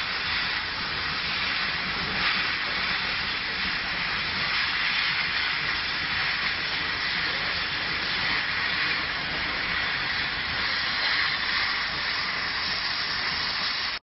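Laser cutting machine running as it cuts paper: a steady hiss of air through the cutting head, which cuts off suddenly near the end.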